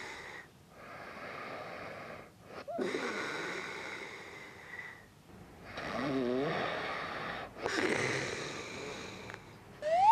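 A sleeping man breathing loudly and wheezily, with snoring, while he wears an anti-snoring tongue sleeve. The breaths last one to two seconds each, with short pauses between them. Just before the end there is a short, loud rising whistle.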